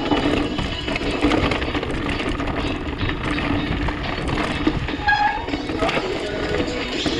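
Mountain bike riding over a rough dirt trail: a steady rattle of tyres, chain and frame with wind noise on the camera, and music playing faintly underneath.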